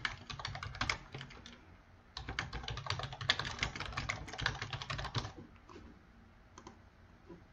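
Typing on a computer keyboard: a fast run of key clicks, a short pause, then a second longer run, followed by a couple of lone clicks near the end.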